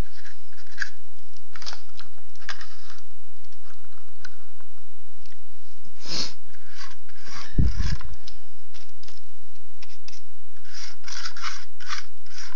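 Paintbrush bristles scratching in short dry-brush strokes across a plastic model locomotive shell, in scattered bursts. A single low thump a little past the middle.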